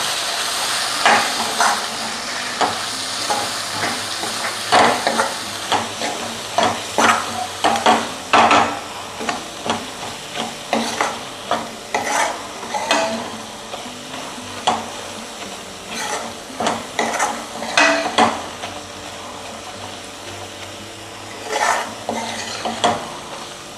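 Onion-tomato masala with spice powders frying in oil in a pan, stirred with a utensil: a steady sizzle under short scrapes and knocks against the pan about once a second. This is the frying-off stage that cooks out the raw smell of the spice powders.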